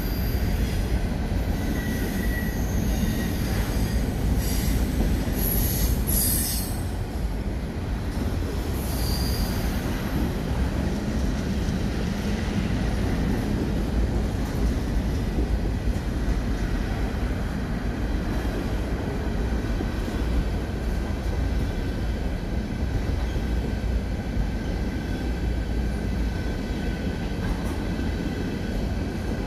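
Canadian Pacific freight train of covered hopper cars rolling past on a curve: a steady rumble of wheels on rail, with high-pitched wheel squeal mostly in the first ten seconds and faintly again near the end.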